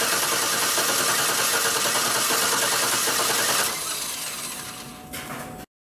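2007 Cadillac Escalade V8 cranking on its starter motor with the coils and injectors disconnected, so it turns over without firing while the valvetrain is watched for a failed lifter. The cranking runs steadily, drops away about three and a half seconds in and fades, then the sound cuts off abruptly just before the end.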